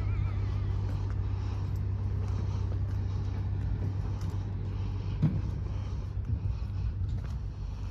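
Road traffic passing: a steady low rumble of car engines and tyres, with a short knock about five seconds in.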